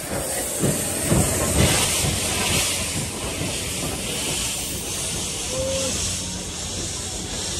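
JNR Class D51 steam locomotive D51 200 moving off. A few deep exhaust chuffs come in the first two seconds, then a loud steady hiss of steam as it rolls past.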